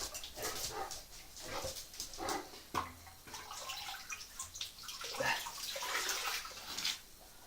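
Water sloshing and dripping, with scattered clunks and scrapes, as an old sump pump is worked loose in its water-filled pit.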